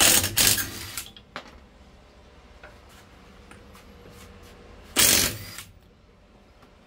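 Ryobi cordless impact wrench hammering on a car's wheel bolts to undo them, in two short bursts: one of about a second at the start and a shorter one about five seconds in.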